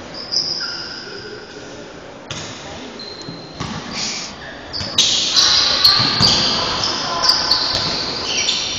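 Basketball game sounds in a large, echoing gym: a ball bouncing on the court and high-pitched shouting voices, which get louder about five seconds in.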